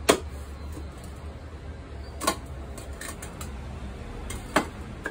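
Light knocks and clicks from the steel shell of a single-burner Diamondback Ironworks gas forge being handled and seated over its new refractory lining, a handful of them spread out, the sharpest about two seconds in and near the end, over a steady low hum.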